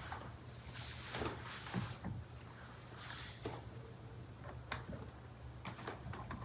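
A steering wheel and its wiring being handled and seated on the column: two brief rustling scrapes and several small clicks, over a low steady hum.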